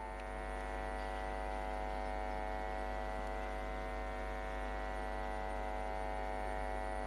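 Steady sustained drone of many held tones together, the opening of a background music track, swelling slightly in the first second and then holding level.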